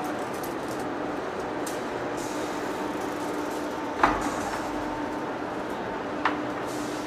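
Heavy industrial machinery running with a steady hum, with two sharp metallic knocks that ring briefly, about four seconds in and again two seconds later.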